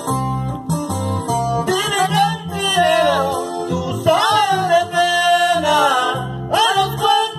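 Music from a sing-along backing track: plucked guitar and bass, with a gliding melody line over them, between the sung verses.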